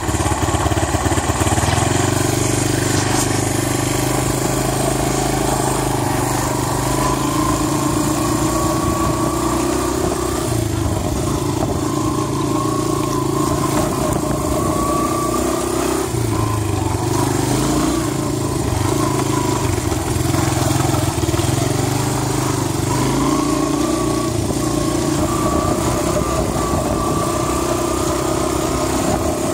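ATV engine running steadily while riding, its pitch rising and falling now and then with the throttle.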